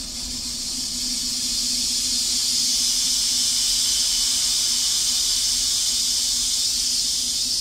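Eerie 'ghost music' track playing from a phone: a steady hiss that swells in over the first second and then holds, with a low steady hum underneath.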